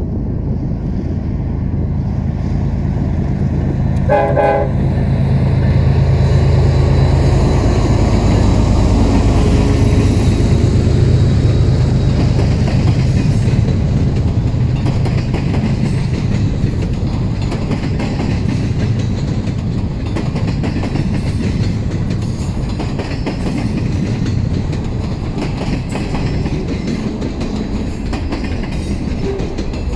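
General Electric diesel-electric freight locomotives passing: a short horn blast about four seconds in, then the deep engine rumble swells and fades as they go by. The freight cars follow, rolling past with a steady rumble and rapid wheel clicks over the rail joints.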